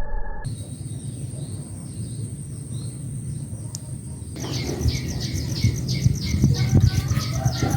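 Small birds chirping in a quick, dense run that starts about halfway, over a low steady hum.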